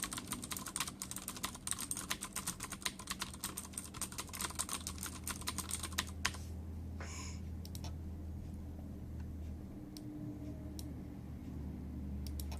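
Cherry MX Blue clicky switches on a Ducky Zero Zone mechanical keyboard clicking under fast, continuous typing, which stops about halfway through. After that only a faint low hum and a few stray clicks remain.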